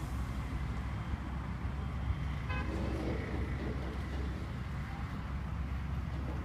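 Engine of a flatbed truck running with a steady low rumble as the truck moves slowly, with a brief high-pitched tone about two and a half seconds in.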